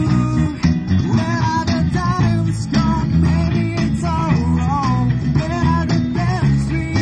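Live band playing a pop song, with guitar over a steady bass line.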